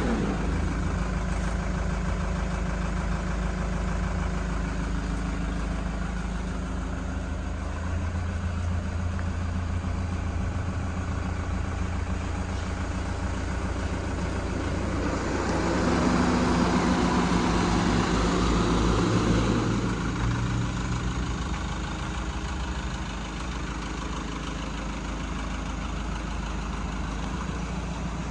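Vehicle engine idling with a steady low hum, growing louder for about five seconds midway before settling back.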